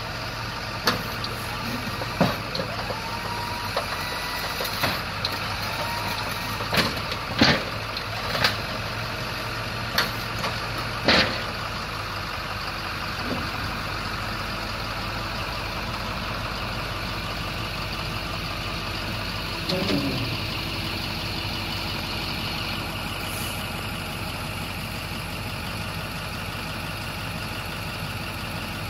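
International TerraStar dump truck's diesel engine idling steadily, with a run of sharp clicks and knocks over the first dozen seconds.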